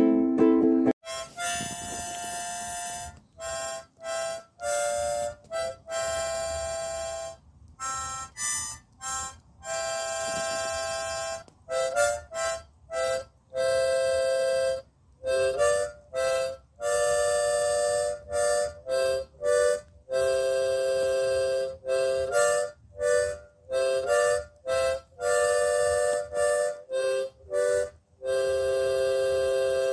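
Harmonica played by a beginner, short held notes and two- or three-note chords with frequent breaks between them, starting about a second in.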